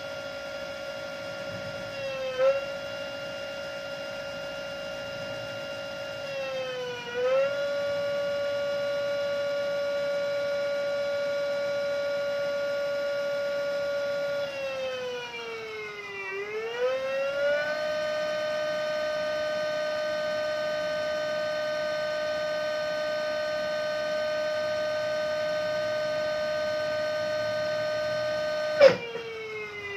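Revolt electric motorcycle's motor whining steadily near full throttle, its rear wheel spinning unloaded on the centre stand at about 100–110 km/h on the speedometer. The pitch dips and climbs back a few times, most deeply about 16 seconds in, then drops suddenly with a sharp click near the end.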